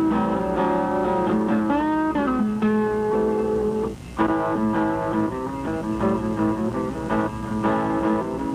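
Background music: guitar playing, with one note bent in pitch about two seconds in and a brief pause about four seconds in.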